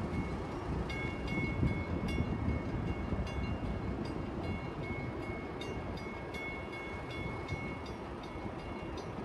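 Railroad grade-crossing bell ringing in repeated strokes while the crossing signals are active, over the low rumble of a Metra commuter train standing a distance down the track.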